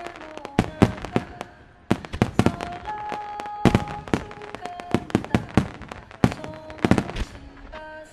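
Starmine fireworks barrage: shells bursting in rapid, irregular succession, many sharp bangs every second with a few heavier booms, alongside some held musical notes.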